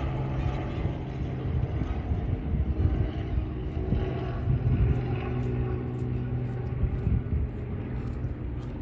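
A steady engine drone with a low, gusting wind rumble on the microphone.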